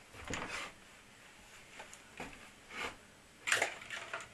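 A few faint, scattered rustles and knocks of handling or movement, with a louder cluster about three and a half seconds in.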